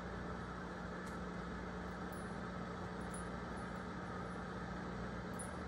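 Microwave oven running with a steady low hum while heating food.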